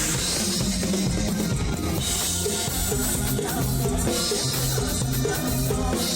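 Live mor lam band music with a steady beat, the drum kit to the fore over a bass line that moves between held notes.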